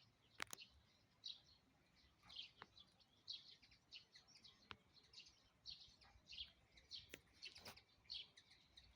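Small birds chirping faintly in the background, many short repeated chirps, with a few sharp clicks scattered through.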